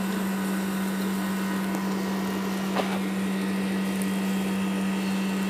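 A steady electric fan or motor hum with a constant low drone under an even whooshing noise, and a faint tick about three seconds in.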